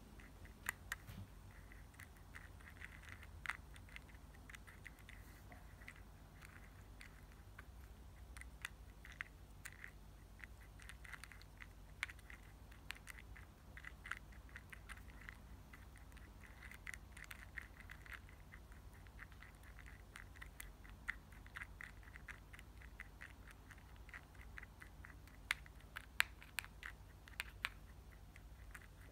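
A paintbrush stirring watery paint in the well of a plastic palette: faint, irregular little clicks and scratches of the bristles and handle against the plastic.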